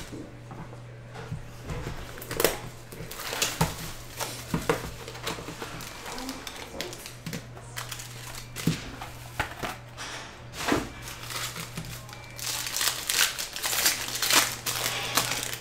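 Plastic shrink wrap and foil card packs crinkling and tearing as a box of trading cards is unwrapped and opened by hand: scattered sharp crackles, then a dense run of crinkling near the end.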